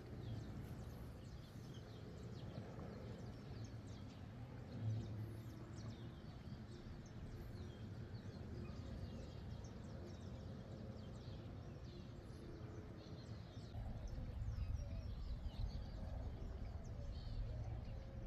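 Wind rumbling on the microphone, stronger from about fourteen seconds in, with faint bird chirps in the background.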